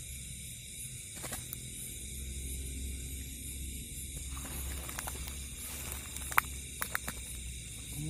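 Steady chirring of night insects, crickets, with the rustle of a nylon cast net being gathered and handled in dry grass, and a few sharp clicks a couple of seconds before the end.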